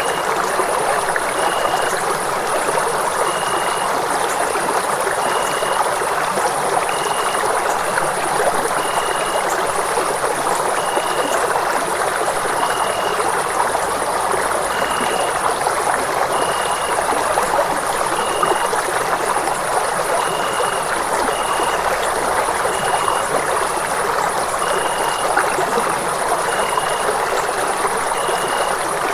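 Running water rushing steadily and evenly, with no change in level. Faint short high pips repeat every second or two over it.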